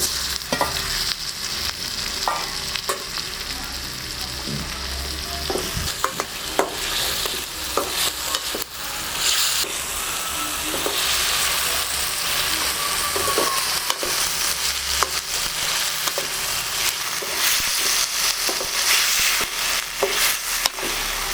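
Tomatoes sizzling as they fry in hot oil in a pan, stirred with a spatula that knocks and scrapes against the pan every so often.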